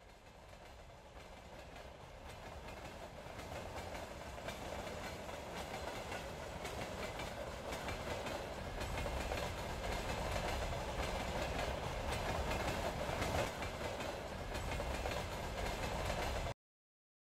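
A train running along the railway line, growing louder over about ten seconds as it approaches, then cutting off suddenly near the end.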